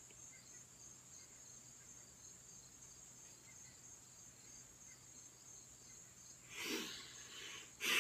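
A faint steady high-pitched trill of crickets or other insects, with two short noisy bursts near the end.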